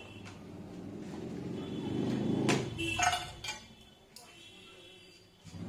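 Small jeweller's wire cutter clicking sharply twice, about two and a half and three seconds in, as it trims the earring wire to size, with a fainter click a second later. A low rumble swells and fades underneath.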